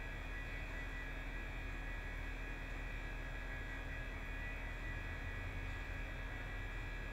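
Steady hum with a few faint, unchanging high tones over it: room tone with no events.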